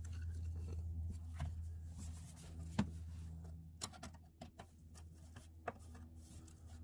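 Scattered small clicks and taps of plastic quarter-turn retaining clips being pushed into an under-engine cover panel and rotated to lock, over a steady low hum.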